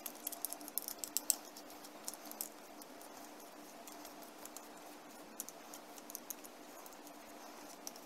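Faint rubbing and small plastic clicks as a cloth wipes a 360 S7 robot vacuum's drive-wheel module, busiest in the first couple of seconds and sparse after, over a faint steady hum.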